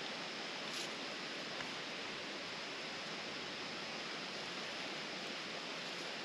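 A steady, even hiss of outdoor background noise with no distinct events in it.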